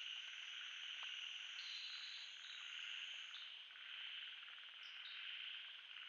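Faint nocturnal chorus of insects and frogs: a steady, high-pitched layered trilling, with some of the higher tones dropping in and out every second or so.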